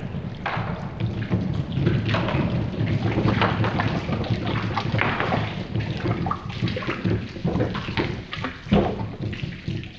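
Many marbles rolling down a plastic spiral water-slide marble run: a continuous low rumble dense with clicks and clatter, with the balls dropping and splashing into a water tank.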